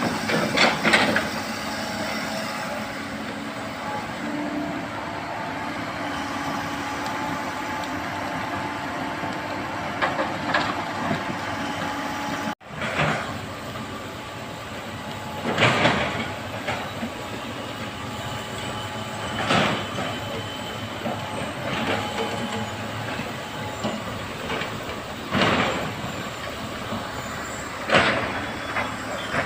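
Excavator running steadily under work, with sharp metallic clanks every few seconds in the second half. The sound cuts out abruptly about halfway through and then resumes.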